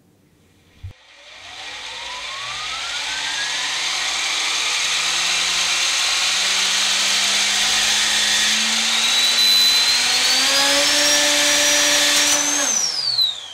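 Electric-motor-driven 3D-printed turboshaft with a gearbox and counter-rotating propellers spinning up: a click, then a whine and gear whirr that climb steadily in pitch for about ten seconds. Near the end the gear sound cuts out suddenly and the whine falls away in pitch as the gearbox jams up.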